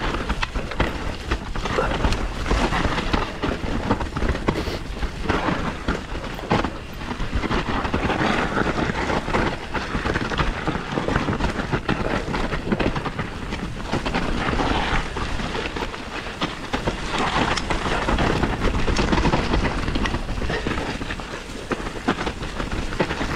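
Santa Cruz Bronson full-suspension mountain bike riding down a dirt woodland trail: tyres rumbling over dirt and roots, the bike rattling and knocking, and wind buffeting the camera microphone.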